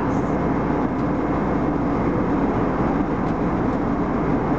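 Steady cabin noise of an Airbus A319 airliner in flight: a constant rush of engine and airflow noise with a low hum, unchanging throughout.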